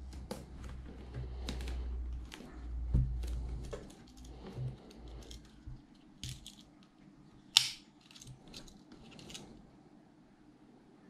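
Handling of a shrink-wrapped cardboard box, with low rubbing and a thump as it is set down on a wooden desk. Then a Swiss Army pocketknife's blade is pulled open, with a sharp click about seven and a half seconds in, followed by light clicks and scrapes of the blade at the plastic wrap.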